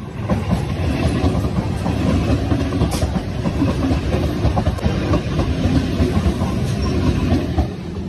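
Train passing close by at speed: a loud, continuous rumble of steel wheels on the rails with irregular clattering knocks.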